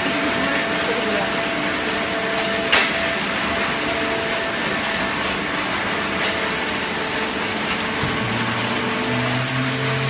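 Hydraulic horizontal waste-paper baler running: a steady machine hum over a noisy din, with one sharp clack about three seconds in and a lower hum coming in near the end.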